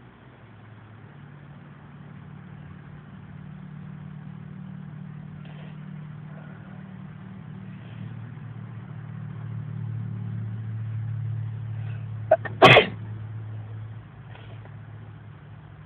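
A man sneezes once, a sudden loud burst about three-quarters of the way through, over the steady low hum of a car engine inside the car. The hum slowly grows louder before the sneeze and drops back a little after it.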